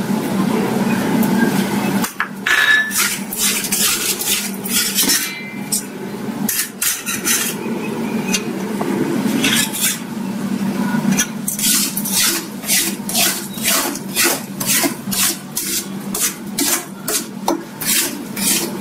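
Metal spatula scraping and clattering against a stainless-steel kadai while stirring thick moong dal halwa, in quick repeated strokes that start about two seconds in and come about twice a second, over a low steady hum.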